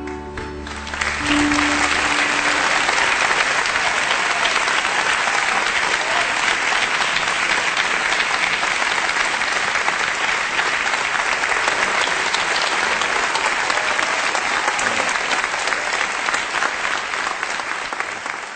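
Concert audience applauding as the music ends. The last held note fades in the first couple of seconds, then steady applause that dies away near the end.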